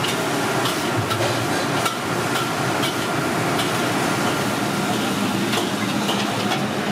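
Busy restaurant kitchen: a steady rushing background with irregular clinks and knocks of utensils and cookware.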